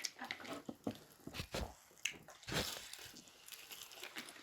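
Someone eating fried chicken: scattered wet chewing and lip-smacking clicks, with a few sharper ones about a second and a half and two and a half seconds in.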